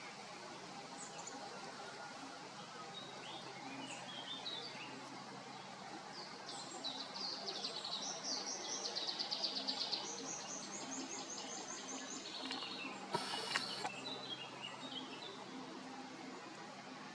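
Songbirds singing: scattered high chirps and fast rapid trills, busiest in the middle, over a steady background hiss. A short burst of noise cuts in about thirteen seconds in.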